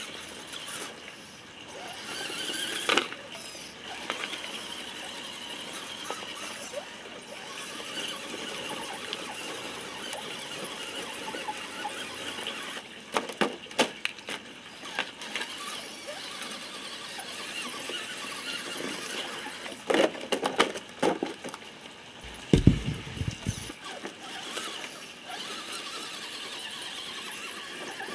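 Electric motor and gear whine of an Axial SCX10 Honcho RC crawler working over a pile of dirt and rubble, high-pitched and steady, with scattered knocks and clatters of the truck against stones, the loudest about two-thirds of the way through.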